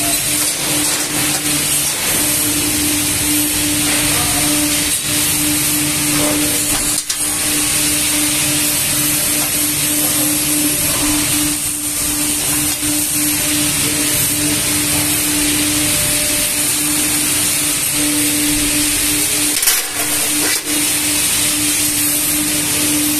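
Hydraulic press brake running: a steady motor hum with a constant low tone and a high whine over hiss.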